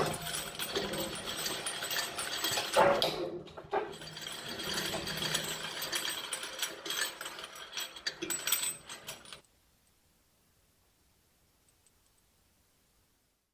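Shredder crunching and grinding an object in its blades, a dense crackling clatter that stops abruptly about nine seconds in.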